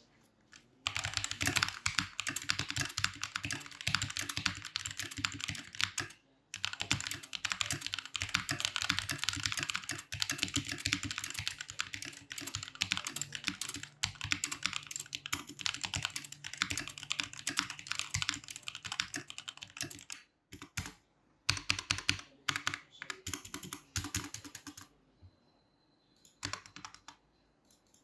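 Typing on a Vortex VX5 mechanical keyboard fitted with KTT Kang White V3 linear switches and Fantech Maxfit61 keycaps: fast continuous keystrokes, with a short break about six seconds in, sparser typing after about twenty seconds, and a pause of a couple of seconds near the end.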